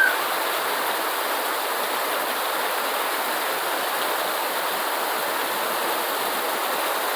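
Steady, heavy rain falling. A brief high chirp sounds right at the start.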